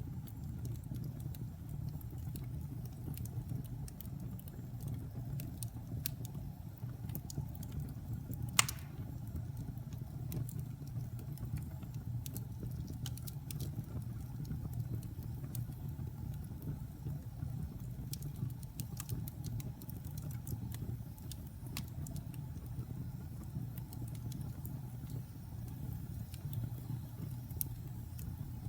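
Wood fire burning in a fireplace: scattered crackles and pops over a steady low rumble, with one sharp, loud pop about eight and a half seconds in.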